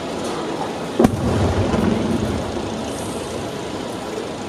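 An aerial firework shell bursting with a sharp boom about a second in, followed by a low rumble that rolls away over the next couple of seconds, over steady background noise.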